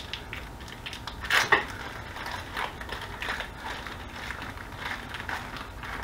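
Plastic vacuum-sealed sausage packaging crinkling and tearing as it is peeled open by hand: a string of irregular crackles, loudest about a second and a half in.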